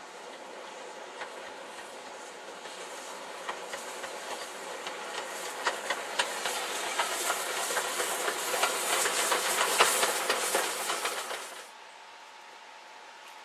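Steam train passing close: the locomotive's hiss and the wheels clicking over the rails build steadily, loudest about ten seconds in, then cut off suddenly near the end.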